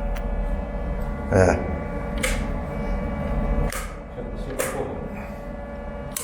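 Old brass toggle switches on a wall switch panel being flicked, giving about five sharp clicks, the loudest about a second and a half in, over a steady electrical hum.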